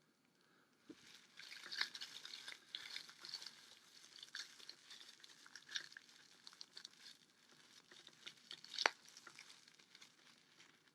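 Soft rustling and light clicking of things being handled, irregular and faint, with one sharper click about nine seconds in.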